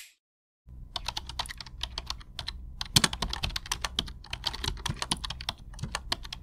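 A clapperboard snaps once at the very start. After a short gap comes rapid computer-keyboard typing: irregular key clicks that run on for about six seconds and stop abruptly.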